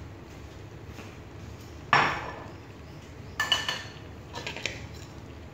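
Cookware clatter from a wok and spatula: a sharp knock about two seconds in, then a quick run of clinks with a brief ring about a second and a half later, and a few lighter clicks after that.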